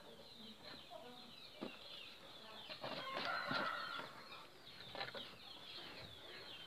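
Small birds chirping steadily in the background, with a few light clicks and rustles from hands tying the orchid's pseudobulbs into a wooden basket; busiest about three seconds in.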